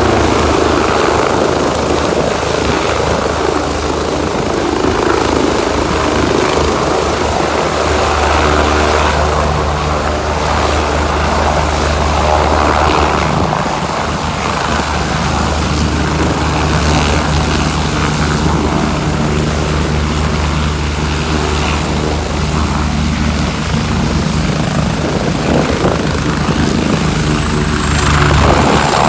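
Medical helicopter's turbine and rotor running steadily, a low rotor drone under a thin high turbine whine. Near the end a high tone drops slightly in pitch.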